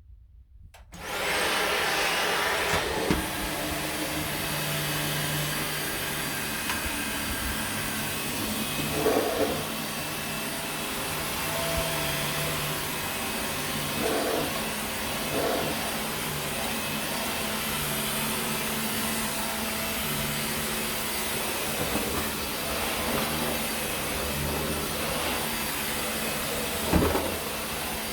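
Dyson vacuum cleaner switched on about a second in, its motor whining up to speed, then running steadily as it is pushed over carpet. A few brief louder surges along the way and a sharp knock near the end.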